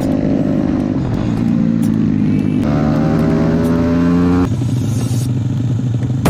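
Honda Chaly's small single-cylinder four-stroke engine running on the move. The engine note climbs after about a second, steps higher near the middle, then falls away about three-quarters of the way through.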